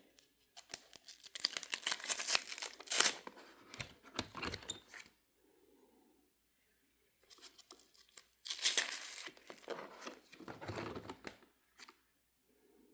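Crinkling and rustling of basketball trading cards being handled and sorted, in two spells of a few seconds each.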